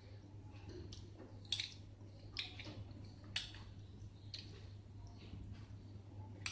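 A child eating from a miniature bowl with a tiny spoon: a handful of short, faint spoon scrapes and clicks spaced about a second apart, over a low steady hum.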